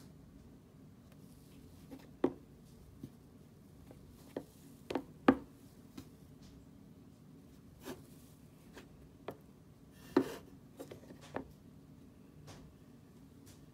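A phone in a case being set down and shifted on a wireless charging pad on a wooden desk: scattered light taps and knocks, about a dozen, the loudest about five and ten seconds in.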